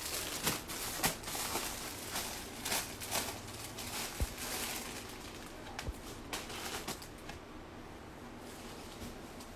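Clear plastic saree packets and silk fabric crinkling and rustling as they are handled on a counter, a string of short crackles that thins out in the last couple of seconds, with a soft knock about four seconds in.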